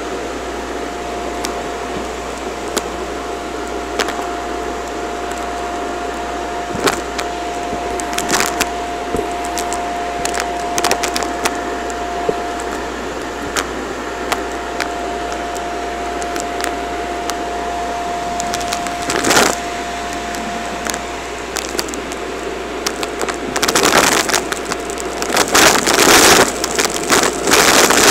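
Vacuum cleaner running with a steady whine while its floor tool sweeps a laminate floor, with occasional sharp clicks as bits of confetti are sucked up. Near the end the nozzle goes into a pile of confetti and shredded debris, and a dense, louder crackling rattle takes over.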